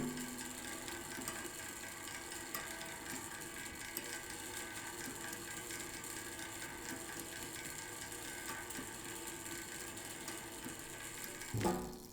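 Small clockwork mechanism ticking steadily and rapidly while set on top of a biscuit tin used as a resonator. A short bump of handling comes near the end.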